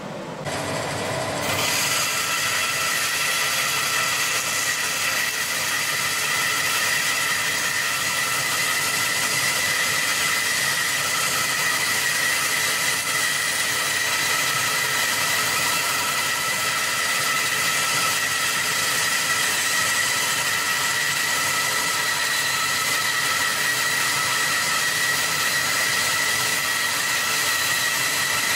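Charnwood W730 14-inch bandsaw ripping a length of wood fed along its fence: a steady high whine over the hiss of the blade cutting. It comes in about a second in and then holds steady.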